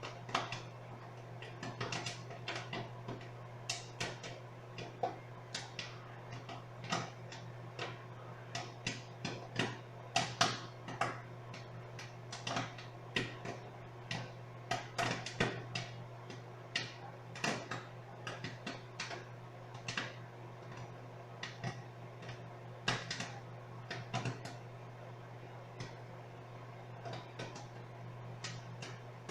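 Popcorn kernels popping inside a running microwave oven: irregular sharp pops, at times several a second, busiest around the middle and sparser later, over the oven's steady low hum.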